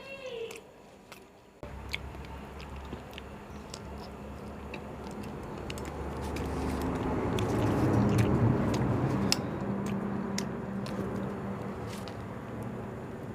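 Close-up chewing and biting of an egg roll, with scattered wet mouth clicks. Under it, a low rumbling noise comes in suddenly about one and a half seconds in, swells to its loudest a little past the middle, then fades.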